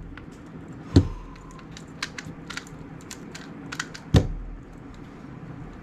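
Speed cubes being handled at a desk: scattered light plastic clicks, with two sharp knocks, about a second in and again near four seconds, as a cube is set down on the table.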